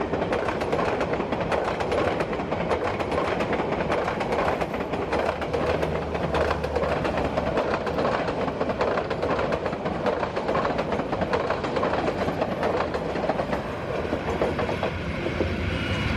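Passenger coaches of a Bangladesh Railway intercity train rolling past, a steady rumble with a rapid, continuous clatter of wheels over the rail joints.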